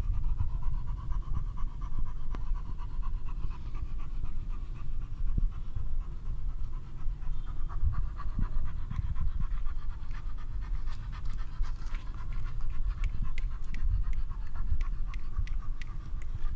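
A large Bully Gultair dog panting steadily and heavily close to the microphone. Light, sharp clicks come in during the second half.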